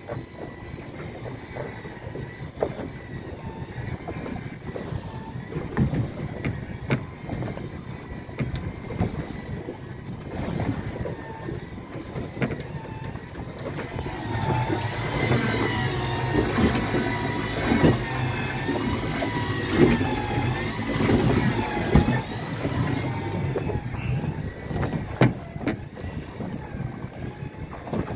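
Tuff Winch TW200 electric anchor winch running as it hauls the anchor line aboard. A whine that wavers in pitch as the load changes, with scattered clicks and knocks, grows louder and busier about halfway through.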